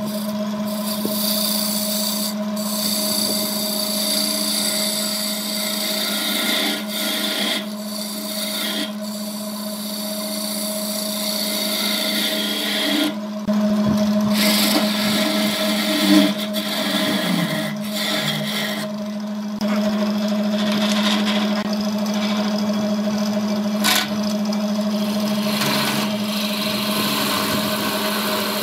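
Wood lathe running with a steady motor hum while a hand-held turning chisel cuts the spinning wood, a continuous scraping of shavings coming off. The cutting breaks off briefly several times as the tool lifts from the wood.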